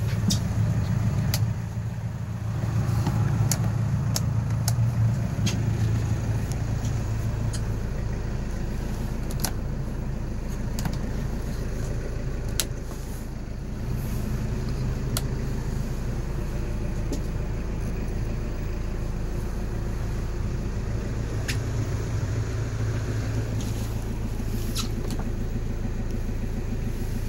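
Mazda Brawny's diesel engine idling steadily, with scattered light clicks over it.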